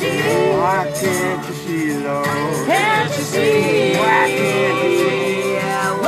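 Acoustic guitar strummed in a steady rhythm, with voices singing along.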